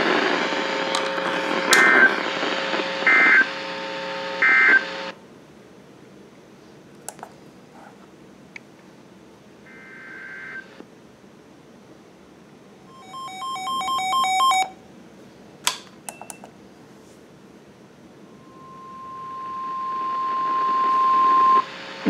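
NOAA Weather Radio alert signals through a weather radio's speaker. Static with three short end-of-message data bursts gives way to quiet hiss, and about two-thirds of the way in a quick run of touch-tone beeps plays. Near the end a steady warning alarm tone fades in, heralding the next severe thunderstorm warning.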